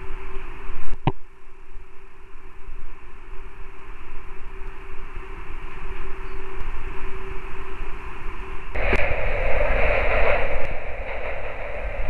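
Steady radio-like static hiss in a narrow band, with a faint steady hum tone underneath. There is a sharp click about a second in, and the hiss swells louder about nine seconds in before easing again.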